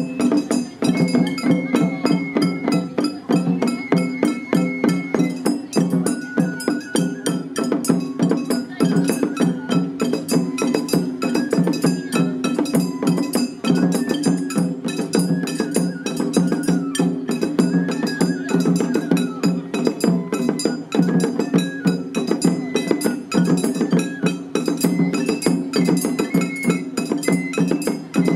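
Japanese festival hayashi played by children: a bamboo flute carries a melody of held, stepping notes over quick, steady taiko drum strokes that continue throughout.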